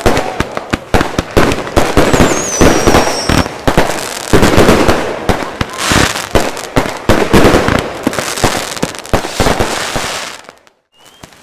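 Many consumer fireworks going off together: a dense run of rapid bangs and crackling, with a falling whistle about two seconds in. It drops out suddenly near the end.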